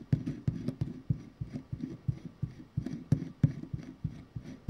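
Light metallic clicking from a 1920s NSU Hirschhorn coaster-brake hub as its cone is screwed onto the threaded axle by hand, the parts and bearing balls ticking as they turn. A run of short, uneven clicks, several a second.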